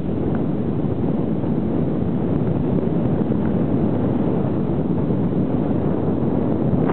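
Steady noise of a car driving on a snow-covered road, engine and wind noise blended, holding level with no change in pitch.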